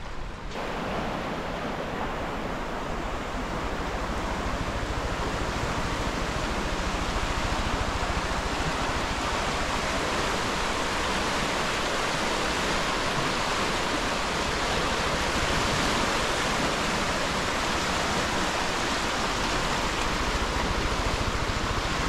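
Steady rushing of the high, fast-flowing Iguazu River running through rapids.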